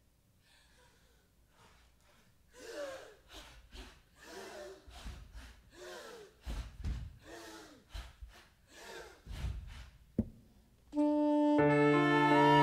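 Performers breathing hard in a run of quick, audible gasps, about two a second, for some seven seconds. A sharp knock follows, then the live band comes in with a loud sustained chord near the end.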